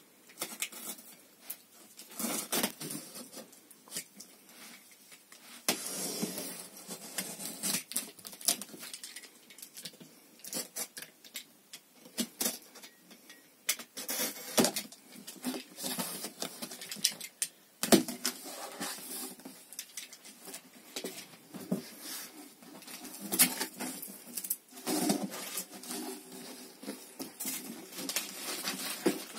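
A box cutter slicing packing tape on a cardboard box, then the cardboard flaps being pulled open and handled: a long run of irregular scrapes, rips and crackles.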